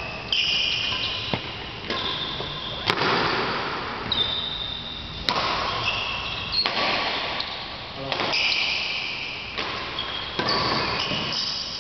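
Badminton singles rally in a large echoing hall: shoes squeaking in short high chirps on the court floor as the players move, with several sharp cracks of rackets hitting the shuttlecock.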